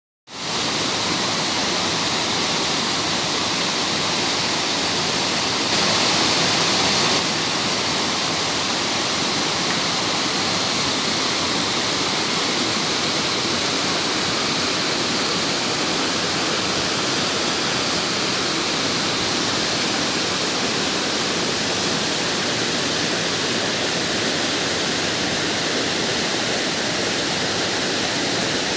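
Rushing water, a steady dense roar without the rise and fall of breaking waves, briefly louder about six seconds in.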